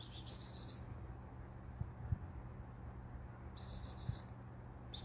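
Insect trilling in high-pitched bursts of about a second, once at the start and again near the end, over a steady low hum.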